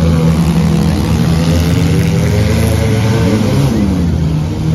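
Several four-cylinder demolition derby cars' engines running together in the arena. One engine revs up and back down about three seconds in.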